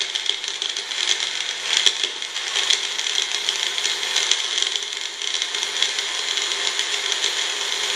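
Magic Bullet personal blender motor running steadily, crushing ice in a milk-based protein drink, with a light rattle throughout.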